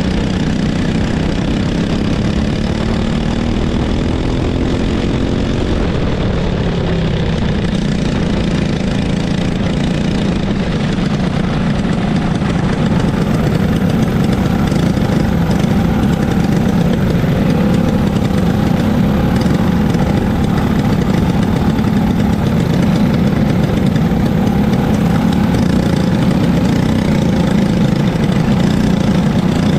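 Racing go-kart engine running, heard from on board the kart. The pitch rises a few times early on, then holds fairly steady and gets a little louder about halfway through.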